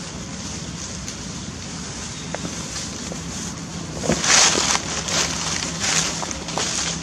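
Dry leaf litter rustling and crackling in irregular bursts as macaques move about on it, starting about four seconds in, over a steady low hum.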